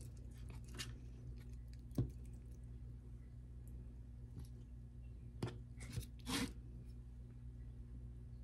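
Quiet squishing and tearing of cooked chicken drumstick meat being pulled off the bone by hand, with a few light clicks and knocks, a sharp one about two seconds in and a small cluster around six seconds, over a steady low hum.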